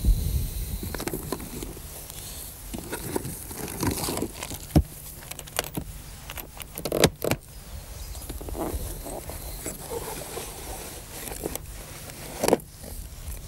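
Rummaging in a tackle box on a holdall: scattered rustling and handling knocks, with a few sharp clicks of the box and its contents.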